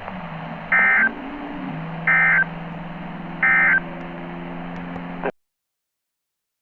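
NOAA Weather Radio EAS end-of-message signal: three short digital SAME data bursts, about 1.3 seconds apart, over a steady radio hiss and low hum, marking the end of the tornado warning. The audio cuts to silence about five seconds in.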